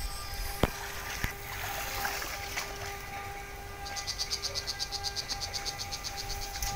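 Backpack electrofishing unit in use: a steady electrical hum with two sharp clicks in the first second or so. About four seconds in, a high pulsing buzz starts and repeats about six times a second.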